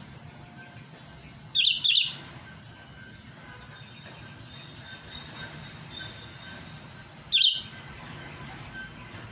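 Sooty-headed bulbul (kutilang) giving loud, sharp calls, the call of a bird calling out to a rival: a quick double note about a second and a half in, then a single note near the end, over faint chirps of other birds.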